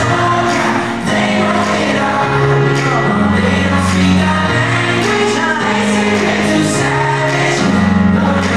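Live pop music over an arena sound system, with a heavy bass line that shifts note every second or so and singing over it.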